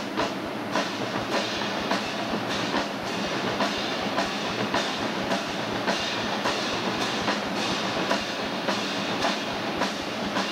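Marching drum line playing: snare drums, bass drums and crash cymbals beating a steady rhythm of sharp, evenly repeating strokes.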